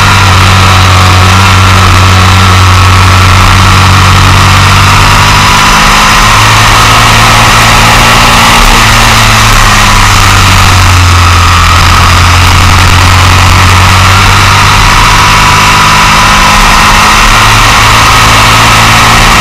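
Motorcycle engine running at speed on track, heard from a camera mounted by the front wheel, with rushing wind and tyre noise over it. It is loud and steady, its pitch shifting a few times as the throttle and revs change.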